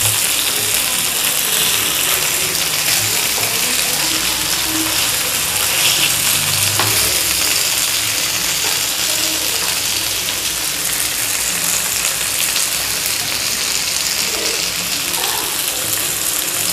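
Steady sizzling of oil around masala-coated seer fish (vanjaram) steaks shallow-frying on a flat tava.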